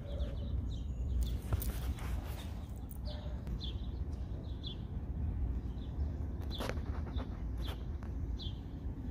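Outdoor ambience, mostly a steady low wind rumble on the microphone. About half a dozen short, high bird chirps are scattered through the second half, with a few light scuffs.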